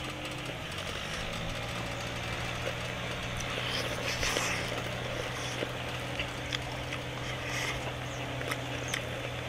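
An engine running steadily in the background, a low, even hum, with faint clicks from eating.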